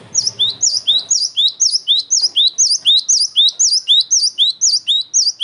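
Cinereous tit (gelatik batu) in full song, repeating its 'wucit' phrase about twice a second in a long unbroken run. Each phrase is a quick rising high whistle followed by a higher, falling note.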